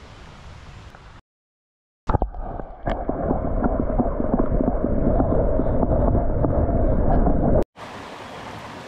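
Small stream flowing, broken by an abrupt second of silence, then a much louder, muffled rushing and gurgling of water that starts with two knocks. After about five and a half seconds it cuts back to the open stream sound.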